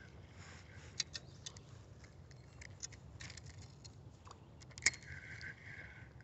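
Faint, scattered light clicks and ticks, irregular rather than rhythmic, with one sharper tap about five seconds in.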